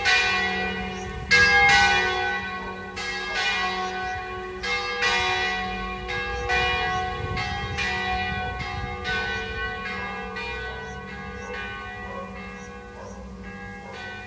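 Two church bells, tuned F sharp and G sharp, ringing in turn with strikes at uneven intervals and long ringing tones between them. The ringing grows gradually fainter toward the end.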